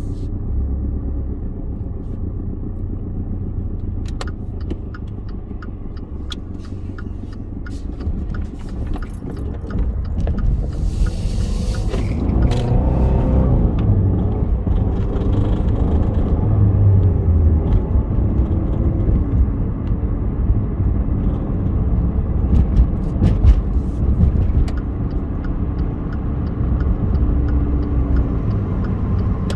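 Car engine running and being accelerated, rising in pitch, with a regular clicking of about two clicks a second that comes and goes. This is the stutter and clicking the owner gets when accelerating too fast.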